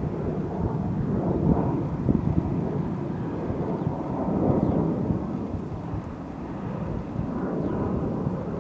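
Wind buffeting the microphone outdoors: a low, uneven rumble that swells and eases in gusts.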